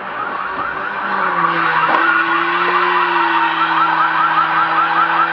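An electronic siren yelping: a fast run of short rising chirps, about four or five a second, that grows louder about a second and a half in, over a steady low hum.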